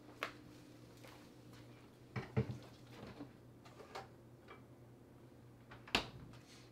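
Items being handled at an open refrigerator: a few faint, scattered clicks and knocks, the loudest about six seconds in, over a low steady hum.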